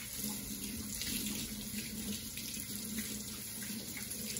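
Kitchen tap running steadily into a sink.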